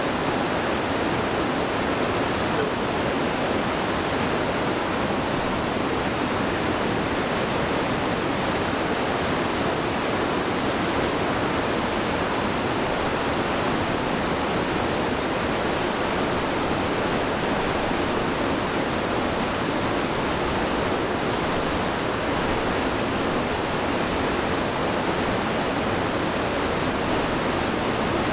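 Whitewater rapids and a waterfall on a mountain river: a steady, loud rush of water.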